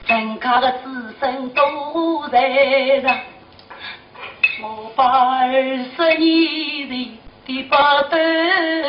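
A woman singing Shanghai opera (Huju) in the fuziban style, phrase after phrase with short breaks between them and some long notes held with a wavering vibrato.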